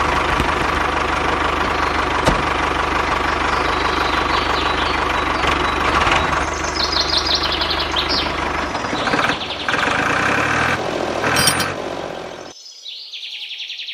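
An engine running steadily with an even knocking rhythm, its sound changing about nine seconds in. High chirps come in around seven seconds, and the engine cuts out suddenly about a second before the end.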